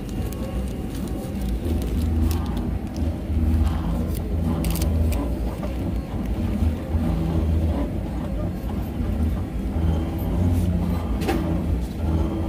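Self-service pet ID tag engraving machine at work: a low motor hum that swells and fades unevenly as the engraving head moves, with a few light clicks.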